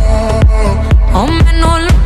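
Background electronic dance music with a steady kick-drum beat, about two beats a second, and a gliding melodic line.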